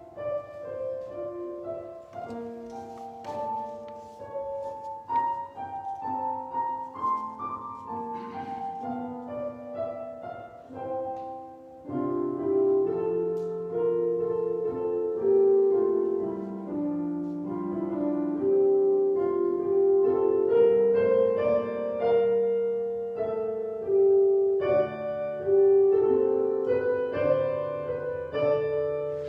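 Piano music, a slow melody over held chords. It plays softly at first and grows fuller and louder about twelve seconds in.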